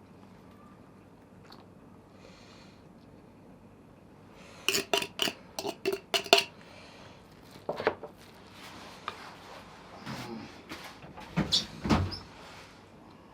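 Dishes and utensils clattering as food is prepared: a quick run of sharp clinks and knocks, then scattered knocks and a heavier low knock near the end.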